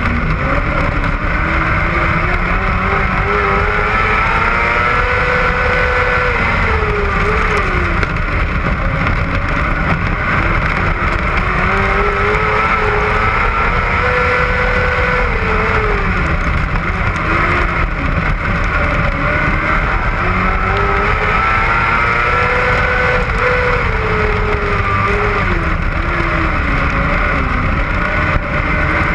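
Onboard engine of a small open-wheel dirt-track race car running at racing speed. Its note climbs on each straight and drops as it lifts for the turns, about every eight to nine seconds, lap after lap, over steady wind rumble.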